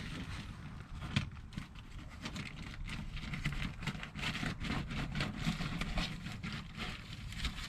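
Plastic sheeting rustling and crinkling as it is pulled off a drainage inlet box, in many quick irregular crackles that grow busier in the second half.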